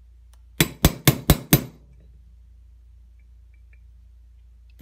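Small hammer striking a brass punch five times in quick succession, driving the roll pin into a Sig Sauer P226 slide to set it almost flush. Each blow is a sharp metallic tap.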